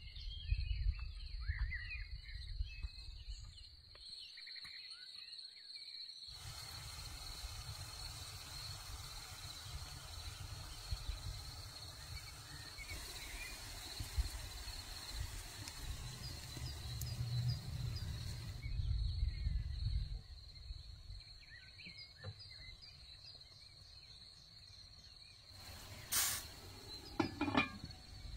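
Outdoor rural ambience: a steady high insect drone, typical of crickets, over low rumbling noise, with a few faint bird chirps. Two short, loud noises near the end.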